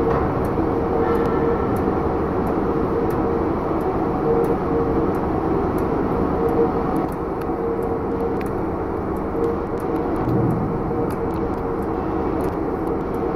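Mini pirate ship amusement ride running, its drive machinery giving a steady mechanical hum with a constant whine as the boat swings.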